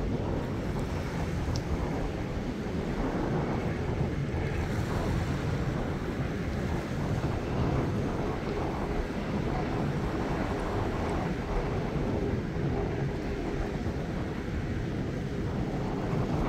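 Small ocean waves washing and splashing against a rocky reef shoreline, with wind buffeting the microphone and adding a steady low rumble.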